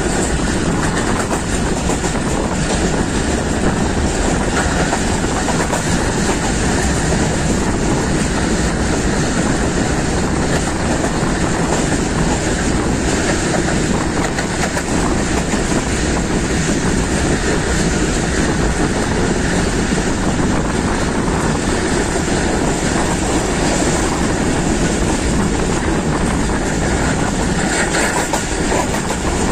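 Passenger train running at speed, heard from an open carriage door: a steady loud rumble of steel wheels on the rails with intermittent clickety-clack over the rail joints.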